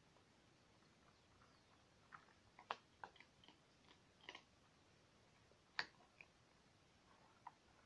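Cats eating from a shared bowl: faint, irregular crunching clicks of chewing, a handful of sharp crunches a second or so apart, two of them louder than the rest.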